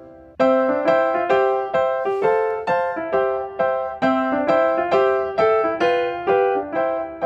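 Background piano music: a gentle melody of struck notes, about three a second, picking up again after a brief pause about half a second in.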